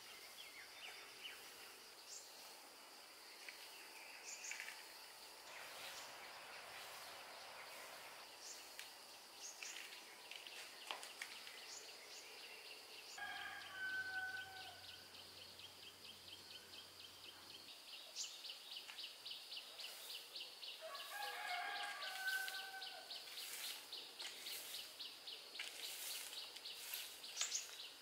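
Quiet rural outdoor ambience: insects trilling steadily, with a fast pulsing trill setting in about halfway, and scattered short bird chirps. A rooster crows twice, once about halfway through and again about eight seconds later.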